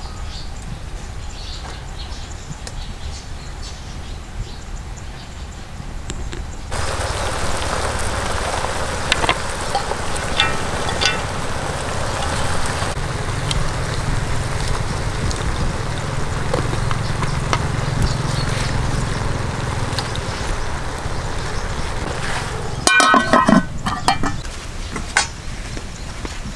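Outdoor pot cooking over a small stove: a steady hiss with scattered small clicks as vegetables are laid into the aluminium pot. About three-quarters of the way through comes a brief, loud metallic clatter with a ringing tone, the pot's aluminium lid being set on.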